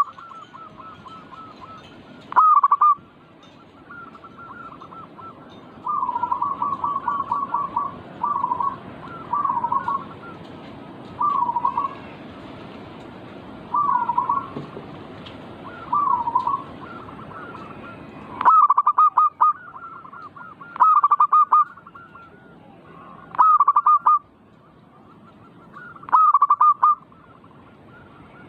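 Zebra doves (perkutut) cooing: about a dozen short rolling coo phrases repeated every one to three seconds, the loudest near the start and in the last ten seconds, softer ones between, over a steady faint hiss.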